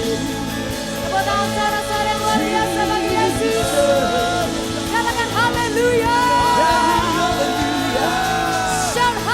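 Live worship band playing, with wordless vocal runs over sustained chords.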